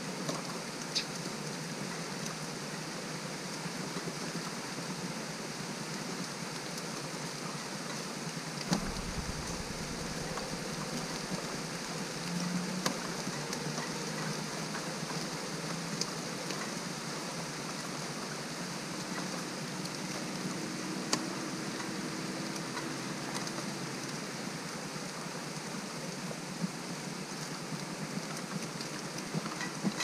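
Steady rain falling as an even hiss, with scattered sharp ticks now and then.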